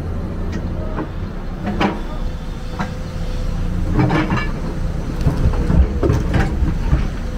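Excavator's diesel engine running steadily under load, with irregular metallic clanks and knocks, about half a dozen, as it works.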